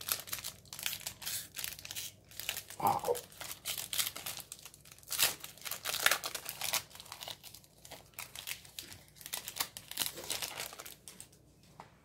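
Foil wrapper of a 2021 Score football card pack crinkling and tearing as it is peeled open by hand: a rapid, irregular run of crackles that thins out near the end.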